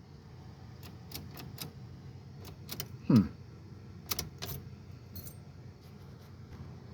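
Scattered light metallic clicks and clinks as a car battery cable is reconnected to its terminal, with a short voiced grunt about three seconds in.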